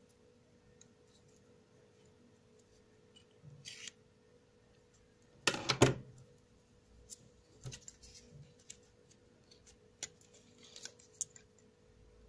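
Hands handling small hard plastic and metal parts: scattered light clicks and taps, with a quick rattle of several clicks about halfway through that is the loudest moment.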